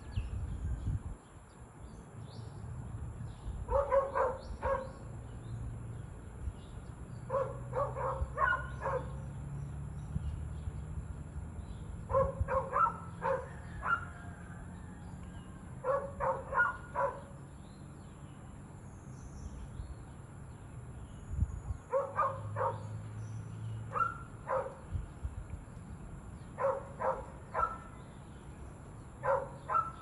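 A dog barking in quick runs of three or four barks, repeating every few seconds, over a low background rumble.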